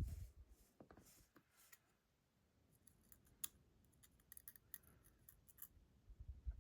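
Small metal lock parts and a tool clicking and scraping faintly as the lock is taken apart. There is a soft knock at the start, then a scatter of light clicks, thickest in the second half.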